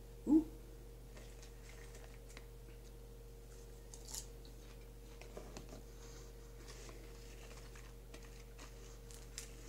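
Scattered light clicks and taps from handling a small plastic popcorn-seasoning shaker and pieces of popcorn, with popcorn being chewed. A short louder sound that falls in pitch comes just after the start.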